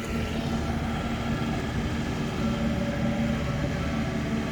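Straw blower's engine running steadily at a constant speed, its fan throwing straw out.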